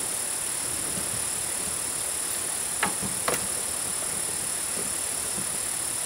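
Two sharp knocks about half a second apart near the middle, over a steady high-pitched hiss.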